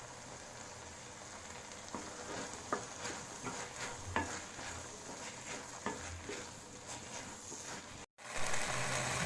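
Sliced baby corn and onion-tomato masala frying in oil in a kadai, with a faint steady sizzle and irregular clicks and scrapes of the ladle against the pan as it is stirred. After a brief break near the end, the sizzle is louder.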